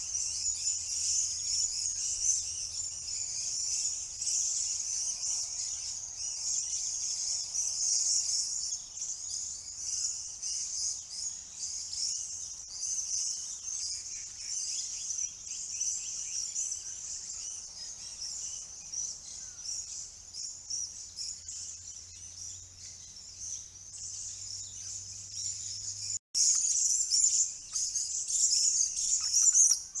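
Dense, continuous background chorus of high-pitched chattering and screeching from many lorikeets and parrots. It breaks off briefly about 26 seconds in and comes back louder.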